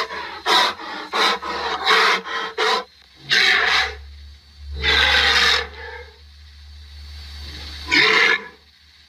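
Rhinoceros calling: a quick run of short, rough calls about two or three a second, then longer drawn-out calls about three, five and eight seconds in.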